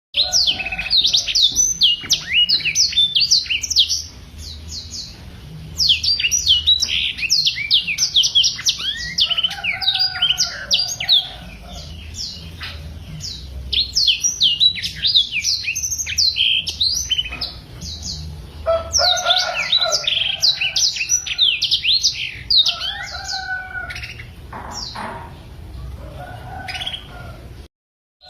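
Black-throated canary singing long, fast twittering song phrases of rapid sweeping notes, in bursts of several seconds with short pauses between them. The sound cuts out briefly near the end.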